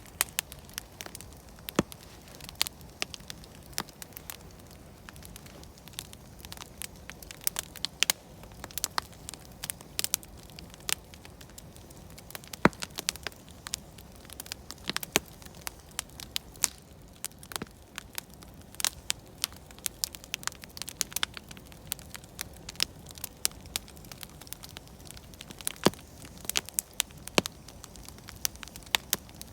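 Wood campfire burning with irregular sharp crackles and pops over a low steady hiss.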